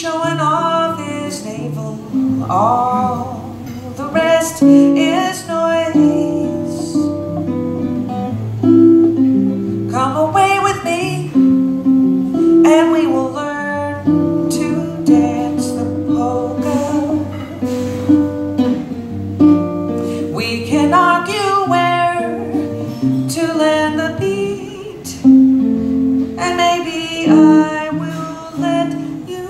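A woman singing with her own acoustic guitar accompaniment, her voice coming in phrases with the guitar playing on between them.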